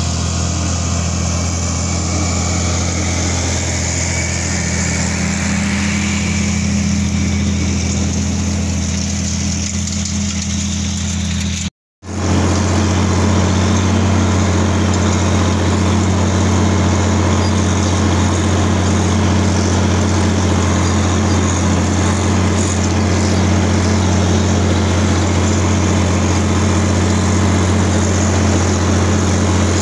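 John Deere tractor engine running steadily under load while pulling a soil finisher through a field. The sound cuts out for an instant about twelve seconds in.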